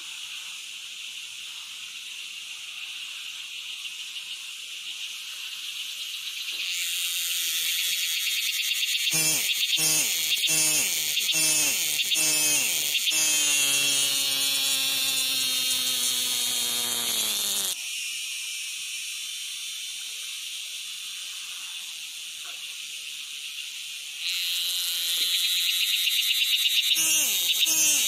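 Insects buzzing steadily in a high pitch, growing louder about a quarter of the way in, easing off after about two-thirds of the way, then swelling again near the end. Over the louder stretch, and again at the very end, an animal gives a lower, rapidly pulsing call.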